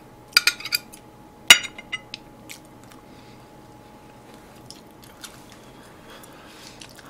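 Metal chopsticks clicking against a ceramic plate of side dishes several times, the sharpest click about one and a half seconds in, then faint chewing with a few soft ticks.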